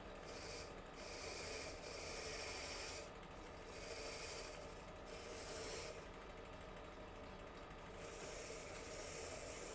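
A series of hand-worked rubbing or scraping strokes on the block plane, each about a second long with short breaks between, in a grainy hiss, with a longer stroke near the end.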